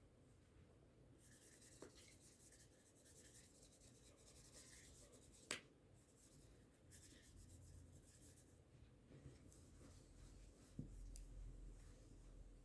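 Faint scratchy scrubbing and rubbing on a mobile phone as it is cleaned, in uneven strokes. There is a sharp click about five and a half seconds in and a soft thump near the end.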